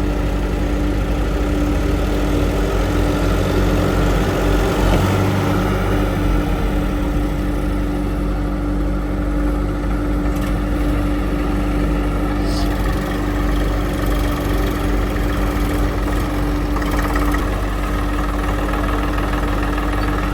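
Large diesel engine running steadily at a constant speed, a continuous engine hum with no revving.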